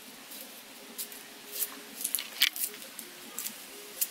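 Small kitchen knife peeling and cutting a red onion in the hand: a run of short, irregular crisp cuts and scrapes, the loudest about two and a half seconds in.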